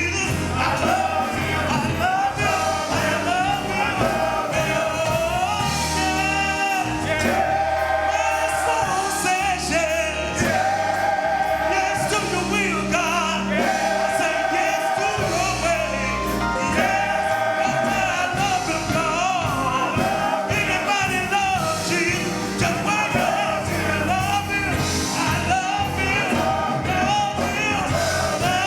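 Gospel song sung by a choir with a band. Long, wavering held notes ride over steady bass notes and a drum beat.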